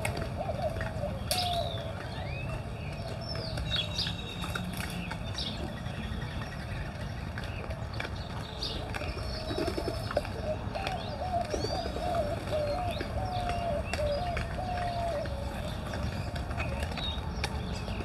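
Doves cooing in repeated low, wavering phrases, with other birds chirping and whistling at a higher pitch.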